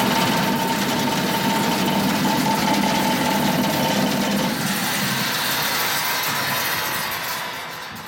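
120-volt electric squirrel-cage blower fan on a homemade drywasher running at speed: a steady high tone over a rush of air, with the chain-hung shaker box rumbling and shaking. The sound falls off somewhat near the end.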